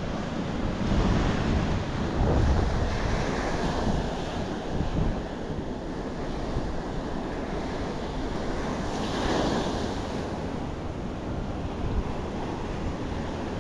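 Ocean surf breaking and washing up the shore, swelling loudest about nine seconds in, with wind rumbling on the microphone.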